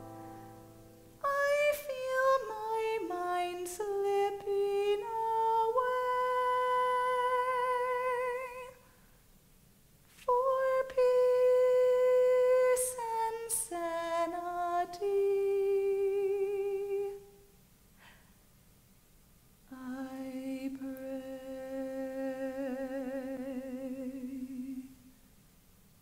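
A woman singing a wordless, unaccompanied melody with vibrato, in three phrases with short pauses between them. The first steps downward note by note, the second holds long notes, and the last is a single long low note.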